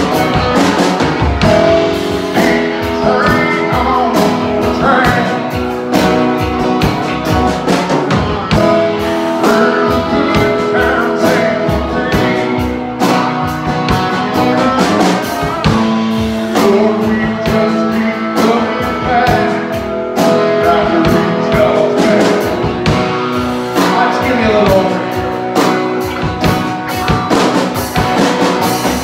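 Live band playing an instrumental stretch of a country-rock song: an electric guitar plays bending lead lines over a strummed acoustic guitar and a drum kit.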